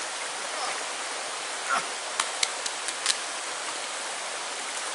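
Steady hiss of running water, with a few faint clicks and taps about two to three seconds in.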